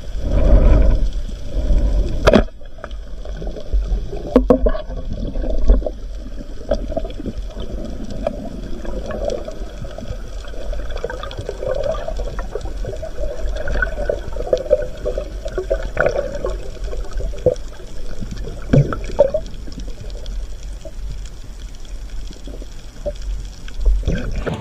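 Underwater sound picked up by a submerged camera: a constant deep rumble of water moving over the housing, with gurgles and scattered sharp clicks. It is louder in the first couple of seconds, then settles.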